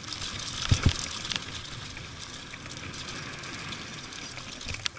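Mountain bike rolling fast down a dirt and gravel trail, with the steady noise of tyres on loose ground and the bike rattling. Two heavy thumps a little under a second in and another just before the end as it hits bumps.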